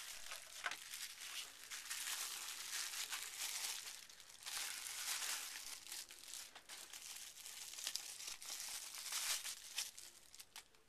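Clear plastic packaging crinkling and rustling as hands unwrap a folding knife from it, with a brief lull about four seconds in; it stops shortly before the end.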